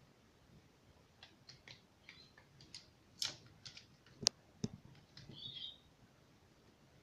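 Small plastic clicks and taps as the paper guide is fitted onto a Brother laser printer's fuser unit by hand, with one sharp click a little after four seconds in.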